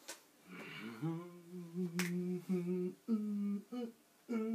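A man humming a tune with his mouth closed, holding steady notes and stepping between pitches every second or so. A single sharp click sounds about two seconds in.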